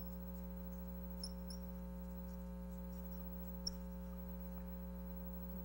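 Steady electrical mains hum with a few brief high squeaks of a dry-erase marker writing on a whiteboard: one at the start, two close together a little over a second in, and one more loudest near the end.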